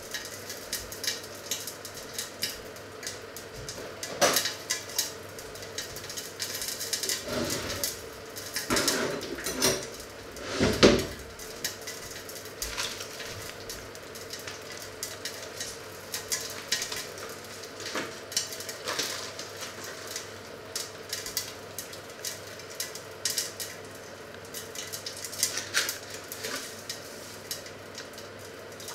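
Clatter of kitchen pans and utensils being handled: scattered clicks and knocks, with a run of louder knocks between about seven and eleven seconds in, the loudest near eleven seconds.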